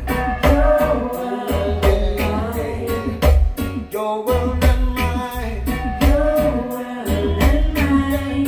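A song with singing, played over a sound system with a heavy, deep bass line from a Bag End subwoofer; the bass pulses and drops out briefly a few times.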